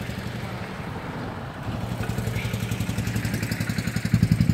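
A small engine running with an even, rapid pulsing beat, growing steadily louder from a couple of seconds in as it draws closer.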